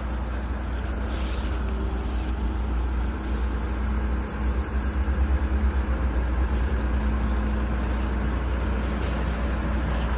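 Fishing boat running under power: a steady low engine rumble with a constant hum, mixed with rushing wind and water noise.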